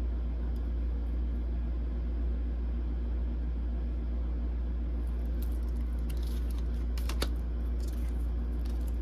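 A steady low hum throughout. From about halfway, soft rustles and light clicks of tarot cards being handled, with one sharper tap of a card set down a little after seven seconds in.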